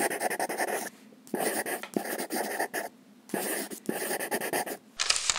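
Pen scratching across paper in strokes of about a second with short breaks between, a handwriting sound for a title written out in cursive. Near the end a different, brighter rustling sound starts.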